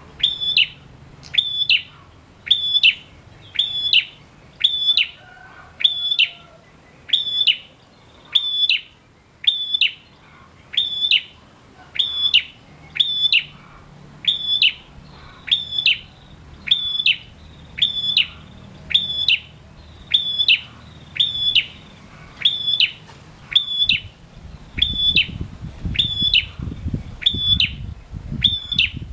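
Male prenjak, a rufous-faced tailorbird, calling one sharp high note over and over in a steady rhythm, about three notes every two seconds. Near the end a low rumble sits under the calls.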